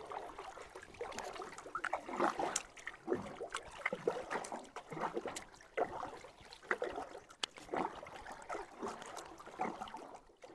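Stream water splashing and dribbling in short, irregular splashes as a fishing net is pulled and handled in the water.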